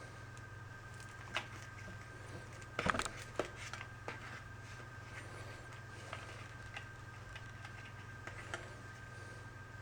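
Scattered light clicks and rustles from handling meter test leads and the Ditra Heat cable connections, with a busier cluster about three seconds in, over a steady low electrical hum.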